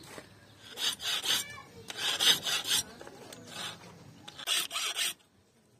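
Hand file rasping back and forth on the wooden handle scales of a cleaver, in short groups of quick strokes, about ten strokes in all.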